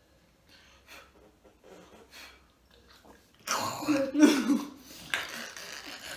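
A woman bursts into loud, breathy, spluttering laughter about halfway through, after a quiet start.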